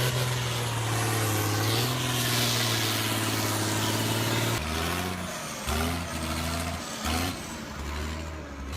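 Tractor engine running under load. It holds a steady note for about four and a half seconds, then changes pitch several times, with short rising revs in the second half.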